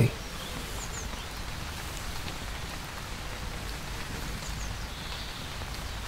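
Steady rain, heard from inside a fabric ground hide: an even hiss with a low rumble beneath it.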